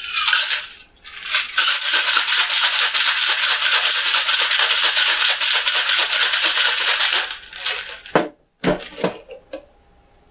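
Ice cubes rattling hard inside a Boston shaker, a stainless tin capped with a mixing glass, shaken vigorously for about six seconds. Near the end come a few sharp knocks as the shaker is opened and the glass is pulled free of the tin.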